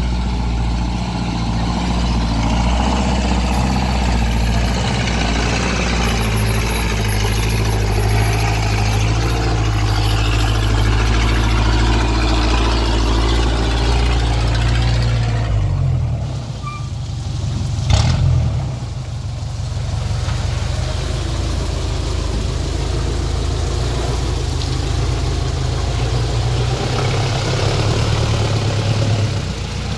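Truck engines running steadily with a low hum. The engine note shifts a little past halfway, and a single sharp bang comes soon after.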